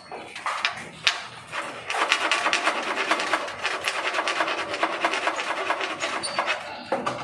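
Rapid, steady scraping from about two seconds in, after a few sharp knocks, as the sliding-door frame is being worked on.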